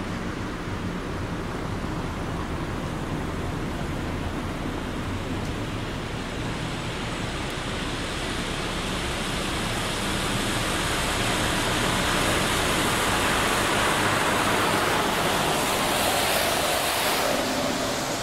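Traffic on a wet road: a Scania Citywide 12LF city bus drives up and passes, its engine running under a steady hiss of tyres on wet asphalt, with cars following. The hiss grows louder in the second half.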